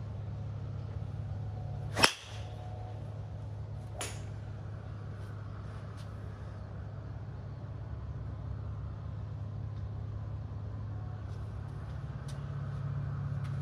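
A golf club striking a ball, a single sharp crack about two seconds in, followed by a fainter click about two seconds later. A steady low hum runs underneath.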